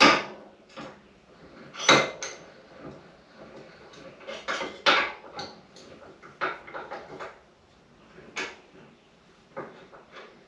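Irregular metallic clinks and clanks of steel tool pieces knocking together as a U-joint removal press is handled and fitted to a driveshaft U-joint, the sharpest knocks at the very start and about two seconds in.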